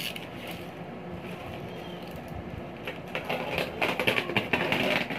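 Box cutter slicing open bubble wrap: a click near the start, then from about three seconds in a dense run of plastic crackling and crinkling as the wrap is cut, over a steady room hum.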